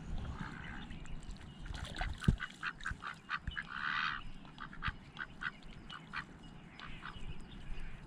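A duck quacking in a run of short, quick calls, loudest about four seconds in, over outdoor riverbank background noise.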